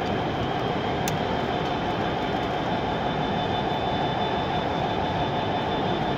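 Model Freightliner Class 66 diesel locomotive running along a layout: a steady drone with a thin high whine, and a single sharp click about a second in.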